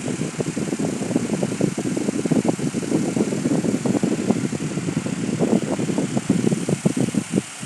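Coin-operated boat kiddie ride running mid-cycle: its motor and rocking mechanism give a steady mechanical rumble with a dense, irregular rattle.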